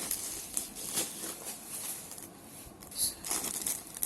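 Light rustling and small clicks of a CD's packaging being handled and opened, with a louder rustle about three seconds in.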